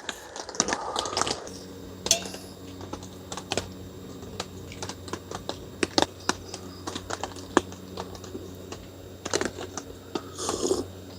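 Irregular light clicks and taps, quick and uneven like typing, over a faint steady hum.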